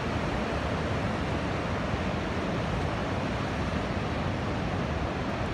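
Ocean surf breaking and washing up a beach, a steady rushing noise, with wind buffeting the microphone.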